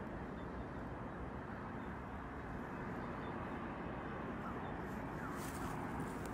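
Someone walking through undergrowth, with a steady rustle and handling noise. Sharper crackles of brushed vegetation come near the end.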